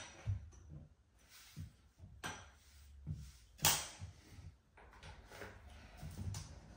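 Hands working on copper pipes and a pipe clip: a few separate clicks and knocks of metal being handled, the sharpest about three and a half seconds in.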